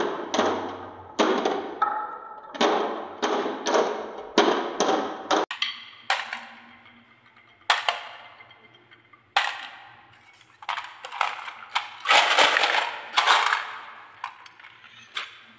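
Marbles rolling along a wooden wave-shaped marble-run track, clicking at an even, quick pace as they knock over the hollows and against each other. About five seconds in this gives way to louder single clacks as marbles drop onto a heap of marbles in a toy truck's bed, with a dense clatter of marbles near the end.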